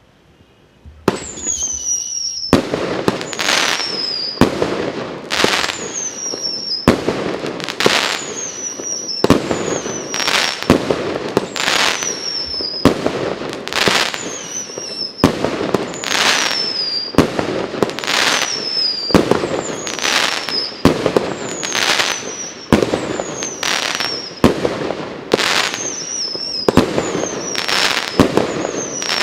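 Consumer fireworks cake (a 19-shot cake) firing shot after shot, about one every two seconds, starting about a second in. Each shot has a short falling whistle and a bang as it bursts.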